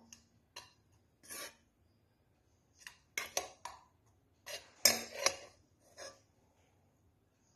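A spoon clinking and scraping against a cooking pot in a series of short, irregular knocks, loudest in a cluster about five seconds in.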